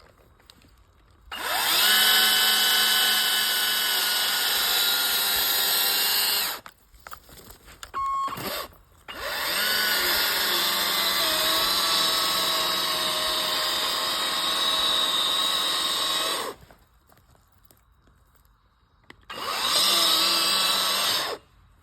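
Kress battery chainsaw running in three long bursts, its electric motor whining as the chain cuts, boring into the trunk of a large tree. Each burst spools up quickly at the start and stops abruptly, with short pauses in between.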